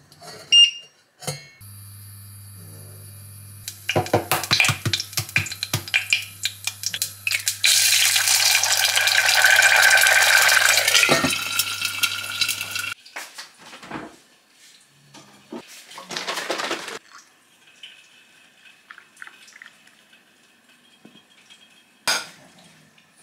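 Beeps from a Bosch induction hob's touch controls, then the hob humming steadily under a stainless saucepan of water with a glass lid. Ticking and rattling build into loud boiling for several seconds, and the sound cuts off suddenly about 13 seconds in. Scattered clinks and knocks of kitchenware follow.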